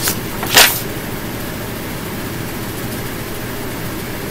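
Steady background hiss and low rumble of room noise, with one short, loud hiss about half a second in.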